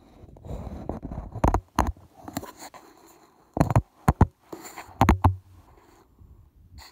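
Handling noise of a phone being fitted onto a spotting scope's eyepiece with a phone-scope adapter: low rubbing with a series of sharp knocks and clicks, the loudest between about one and a half and five seconds in.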